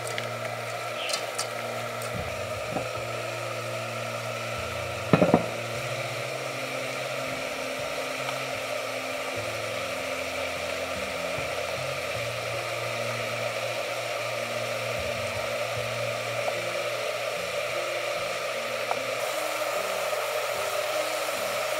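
Food sizzling steadily in a pot, with a short clatter about five seconds in.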